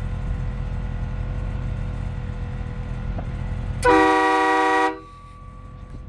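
One deep, loud blast of about a second from Horn Blasters Union Pacific air train horns fed by an onboard compressor and air tank, several tones sounding together as a chord. It starts sharply about four seconds in over a steady low rumble and cuts off abruptly.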